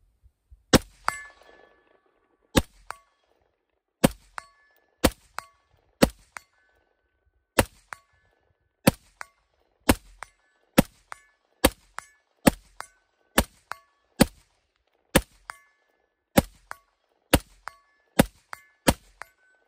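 Slow, deliberate rifle fire from an AR-15-style rifle (Smith & Wesson M&P 15 Sport II), about eighteen shots a second or so apart. Each shot is answered about a third of a second later by the ring of a struck steel target downrange, a hit at roughly 115 yards.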